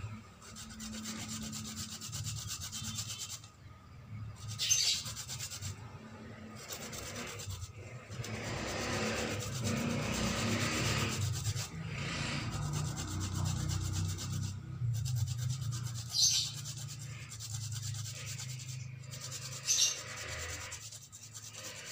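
Fresh turmeric root being rubbed back and forth on a hand coconut grater lined with banana leaf: a continuous rasping scrape, with a few brief sharper hisses.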